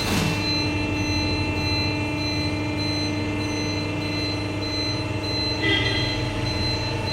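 Steady hum of factory machinery running, with several constant tones over a low drone. There is a sharp click at the very start and a brief higher-pitched sound about five and a half seconds in.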